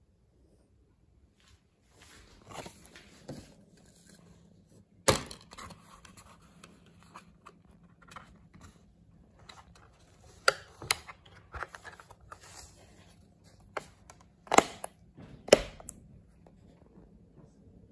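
Plastic DVD keep case being handled, opened and shut, with rubbing and scraping and several sharp plastic clicks and snaps, the loudest about five seconds in.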